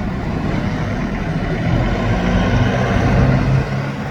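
A loud, steady low rumble like a running engine.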